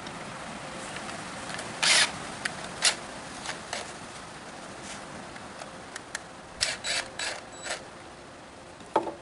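Cordless DeWalt impact driver driving a lag screw into a small wood block in short trigger bursts: one longer burst about two seconds in, a couple of clicks, then five quick bursts around seven seconds. A single knock comes near the end.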